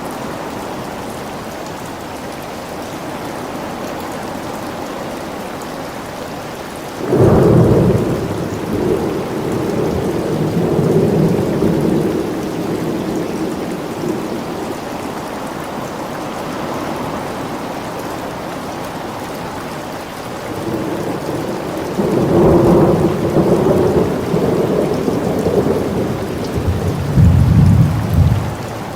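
Steady rain with thunder: a roll of thunder breaks suddenly about seven seconds in and rumbles on for several seconds, and a second one builds from about twenty-one seconds, with its loudest crack near the end.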